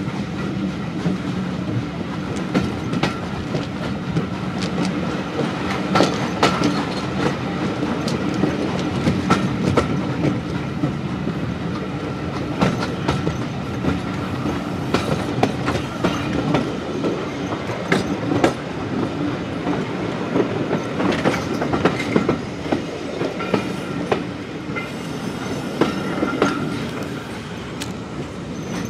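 Running noise of a heritage railway coach heard from an open window: a steady rumble and rush of air, with the wheels clattering over rail joints in irregular clicks.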